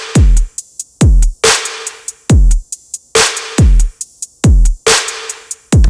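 Programmed dubstep drum loop played back: sampled kicks whose pitch drops fast into a deep thud, a snare about every 1.7 s, and quick closed hi-hat ticks in between.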